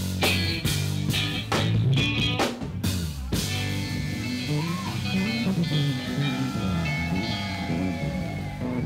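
Live rock band with drum kit, bass guitar and electric guitar playing. The drums stop about three seconds in, and the electric guitar and bass carry on alone with loose, unaccompanied notes.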